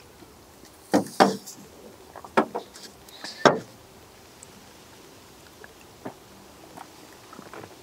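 Four sharp knocks in the first three and a half seconds as a soda can and small drinking glasses are set down and picked up on a wooden table top, followed by only a few faint small clicks.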